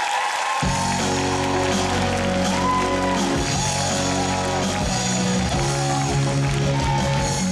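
Upbeat curtain-call music from a musical-theatre band. A held choral chord is joined about half a second in by the full band with a steady bass line, and singing comes in over it.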